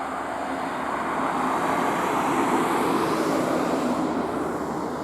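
Road traffic passing at speed: a coach overtaking trucks, a rush of engine and tyre noise that swells to a peak about halfway through and then fades.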